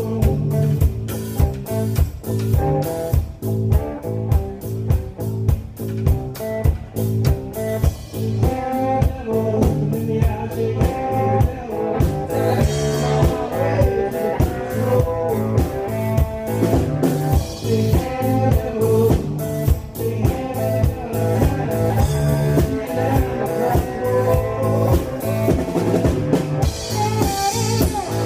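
Live blues band playing: a cigar box guitar and an electric guitar over a steady drum-kit beat.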